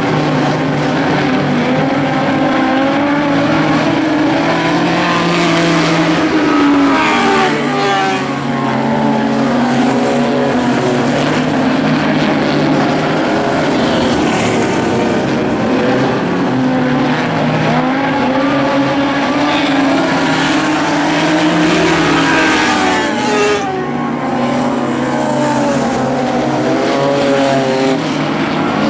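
Several Lightning Sprint cars, small winged dirt-track sprint cars, running laps together. Their engines rise and fall in pitch again and again as they rev down the straights and ease off into the turns, the notes overlapping.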